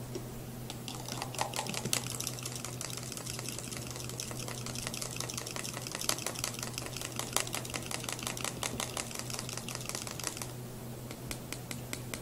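Metal fork stirring a drink in a tall glass, clinking rapidly and continuously against the glass as pre-workout powder is mixed into energy drink; the clinking thins out to scattered taps near the end.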